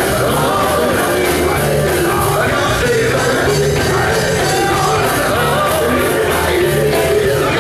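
Live gospel music, loud and steady: a male vocal group singing with a backing band of drums and bass, cymbals keeping a steady beat.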